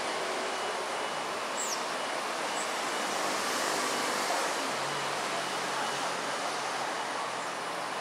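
Steady hiss of urban outdoor ambience, the even noise of distant city traffic, with a couple of short high chirps about two seconds in and a faint low hum joining about halfway through.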